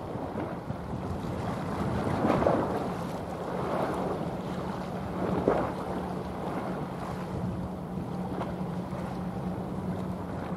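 Steady low drone of a passing general cargo ship, heard across the water under wind noise on the microphone and the wash of waves. Three louder rushes of noise come about two, four and five and a half seconds in.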